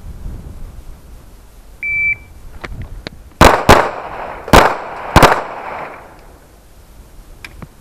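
A shot timer gives one short beep, then a 9mm Smith & Wesson M&P pistol fires four shots: a quick pair, then two slower single shots about a second and half a second apart, each echoing briefly.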